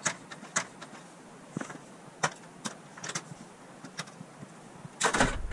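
Scattered sharp clicks and snaps as LED backlight strips are pulled off a TV panel, then a louder scuffing, crackling burst about five seconds in.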